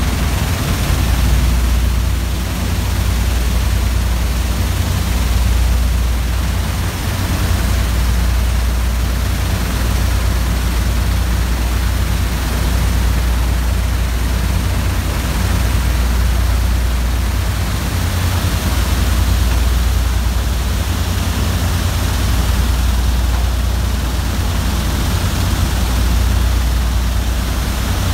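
Shale shakers of a drilling-mud solids-control system running, their vibrator motors shaking the screens as wet cuttings pour off: a loud, steady machinery noise with a deep hum.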